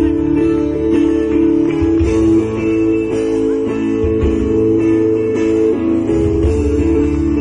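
Guitar music: plucked strings playing steadily over a pulsing low bass line.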